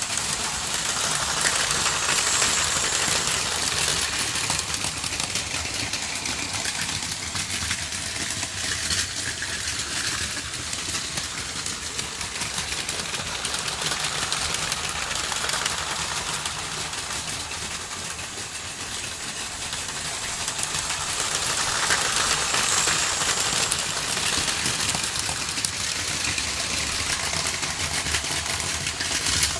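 Several Plarail Advance toy Shinkansen trains running on plastic track: a steady whir of small electric motors and clatter of wheels, swelling louder as a train passes close about two seconds in and again around twenty-two seconds.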